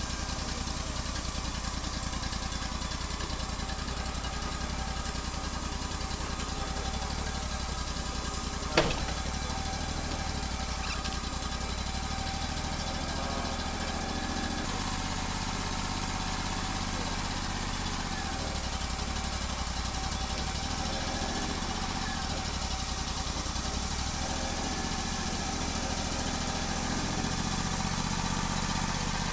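Wood-Mizer LT35 portable bandsaw mill running steadily while squaring up a black walnut log. A single sharp click sounds about nine seconds in.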